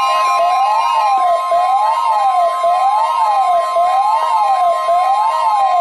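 Weather radio alert for the NOAA Weather Radio weekly test: a steady high alarm tone with a siren-like wail over it, rising and falling about once a second.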